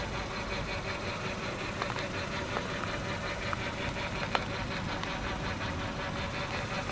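The 2015 Kia Ceed's 1.4-litre inline-four petrol engine idling steadily, with a few light clicks.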